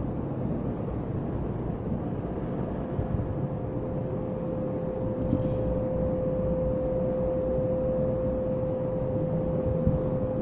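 Steady low rumbling room noise picked up through the microphone, with a thin steady hum that comes in more clearly about halfway through.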